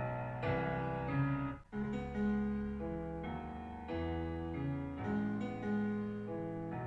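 Piano-led pop music playing through a portable Bluetooth speaker, recorded binaurally as a sound test. It drops out briefly a little under two seconds in.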